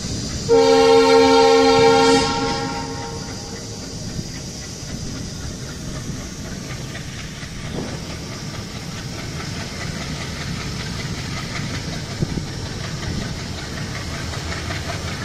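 Train horn sounding one steady blast of about a second and a half, shortly after the start, over the running rumble and wheel clatter of a moving train heard from inside a coach at an open window.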